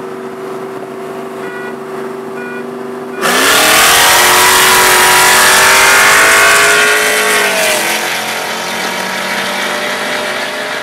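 Two LS V8 sports cars, a C5 Corvette Z06 and a nitrous-fed Pontiac Trans Am WS6, cruising steadily at about 40 mph, then going to full throttle about three seconds in. The loud engine note climbs in pitch through the pull, then drops and eases off about eight seconds in as the throttle comes off.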